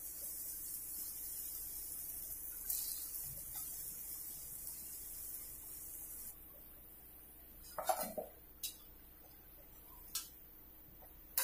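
Urad dal bhallas deep-frying in hot oil in a kadhai: a steady sizzling hiss, which drops away about six seconds in. Then a few sharp metallic clinks as a slotted spoon scrapes the kadhai to lift the fried bhallas out.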